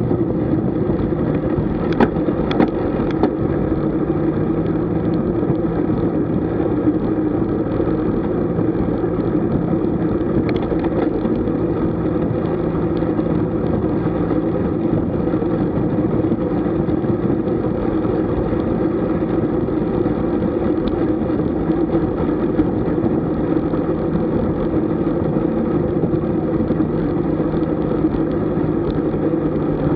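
Steady rumble of wind and road noise from a camera riding along on a moving road bike, with a few light clicks about two to three seconds in.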